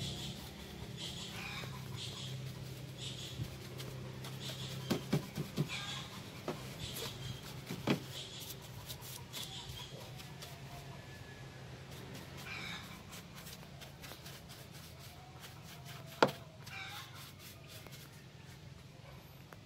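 Detailing brush scrubbing over plastic engine covers and rubber hoses in a car's engine bay, with a few sharp knocks as it strikes parts, the loudest about 16 seconds in. A low hum fades out in the first half.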